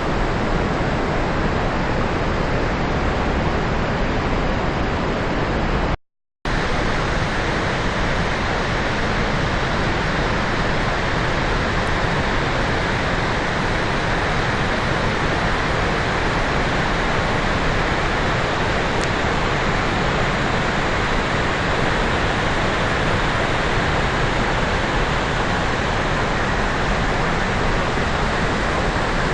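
Steady roar of the Rhine Falls' rushing water, broken once by a brief dropout about six seconds in.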